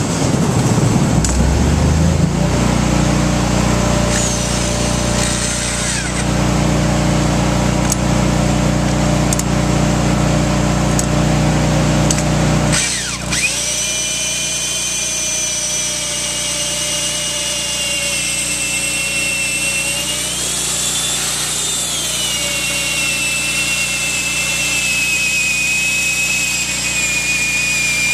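A petrol generator starts up with a rising pitch and runs with a steady low hum. About halfway through, an electric drill spins a large auger bit into a hemlock timber, a steady high motor whine that rises and dips once as the bit loads and frees.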